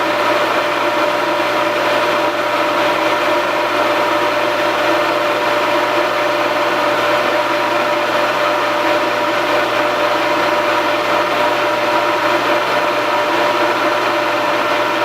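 Metal lathe running with a Bridgeport True Trace hydraulic tracer as the tool touches into a light cut, together with the tracer's hydraulics and the shop's three-phase converters. A loud, steady machine hum with a couple of steady whining tones and no change in level.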